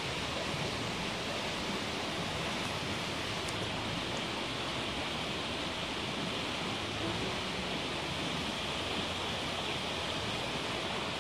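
Steady rush of flowing river water, even throughout with no separate splashes or knocks standing out.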